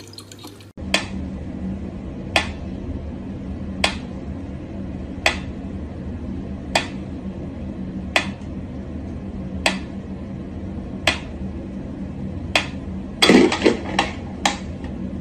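Mechanical pyramid metronome ticking slowly and evenly, about one tick every second and a half, over a steady low hum. Near the end a quick run of louder knocks and clicks.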